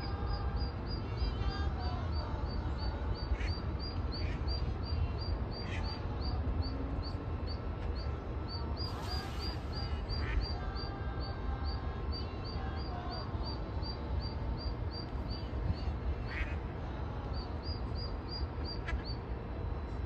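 Mallard duckling peeping: a rapid run of short, high peeps, about three to four a second, with brief pauses; the insistent calls of a lone duckling searching for its mother.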